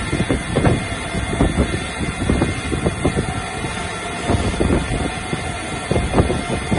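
CNC lathe spindle spinning a metal shaft while the turret's triangular carbide insert takes a finishing cut: a steady machine hum with irregular rattling and knocking throughout.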